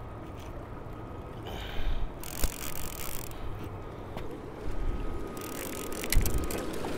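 Water splashing in short bursts as a hooked American shad thrashes alongside the boat and is scooped up in a landing net, with a thump near the end, over a steady low rumble of boat and river.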